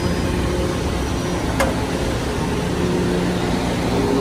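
Metro-North M3A electric multiple-unit train humming steadily while it stands at the platform with its doors open, with one sharp click about a second and a half in.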